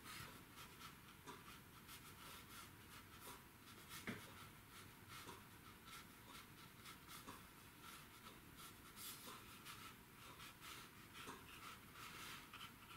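Faint scratching of a small round watercolor brush stroked across textured watercolor paper, in short strokes with a slightly louder tick about four seconds in.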